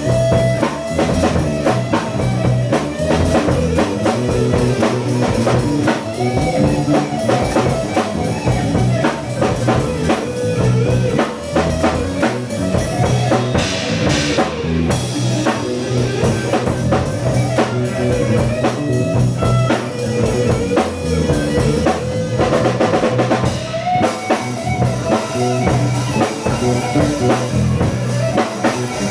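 Rock band improvising live: drum kit keeping a steady beat under electric guitar with sustained, held notes.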